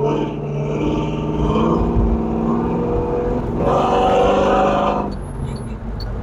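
Cammed LS V8 engine of a 1972 Chevrolet Monte Carlo, heard from inside the cabin, pulling under throttle with its pitch rising and stepping. It grows louder from about three and a half seconds in, then drops off sharply about five seconds in as the throttle is lifted.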